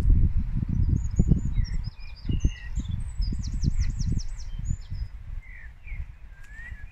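Small birds singing and chirping, including a quick trill of repeated sweeping notes, over a loud, uneven low rumble that fades toward the end.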